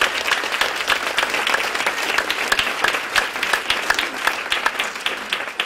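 Audience applauding: many hands clapping in a dense patter, easing off near the end.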